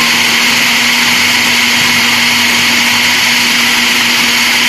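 Electric mixer grinder (mixie) running loudly and steadily at full speed, grinding a wet spice marinade into a paste. It makes an even motor whine with a constant hum under it.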